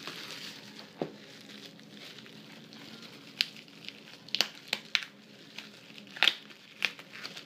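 Bubble wrap being handled and pulled open at its taped edge: soft crinkling with one sharp crackle about a second in and a string of sharper crackles through the second half.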